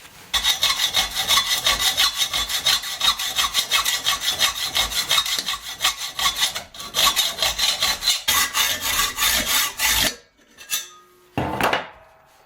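Hacksaw cutting through a metal pedestal in quick back-and-forth strokes, with a steady ringing tone under the strokes. The sawing pauses briefly about two-thirds of the way through and stops about ten seconds in. A short separate noise follows near the end.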